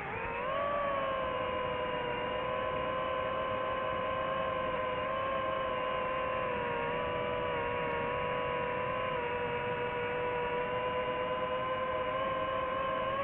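FPV quadcopter motors whining steadily in flight. The pitch dips and climbs back right at the start, then holds nearly level with slight wavering.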